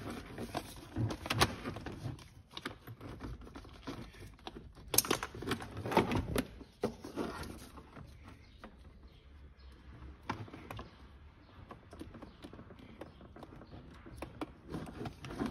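Irregular plastic clicks, knocks and rustling from hands working behind a car dashboard, handling the glovebox-area wiring and unplugging electrical connectors. The loudest knocks come about a second and a half in and again around five and six seconds in, with softer clicks after.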